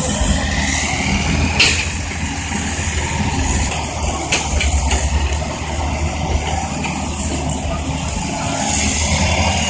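Tracked excavator's diesel engine running steadily while it loads soil into a dump truck. A rising whine comes in the first second or so, a sharp knock follows shortly after, and a few lighter knocks come in the middle.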